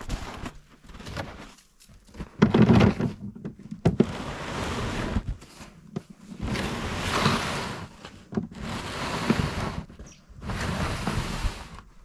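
A plastic sled loaded with old wooden boards being dragged over snow, scraping and crunching in surges of about a second each, several times, with short pauses between pulls.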